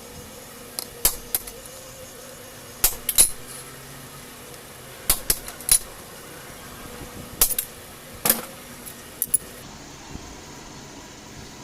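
Sharp metallic clinks and taps of hand tools on motorcycle gear parts, coming in small scattered clusters, as rubber dampers are worked out of a clutch-side free gear.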